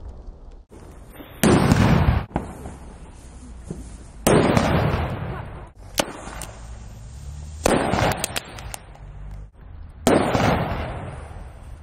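Four loud firecracker bangs, one every two to three seconds, each a sudden blast that rings out and fades over about a second, with quieter noise and small crackles between them.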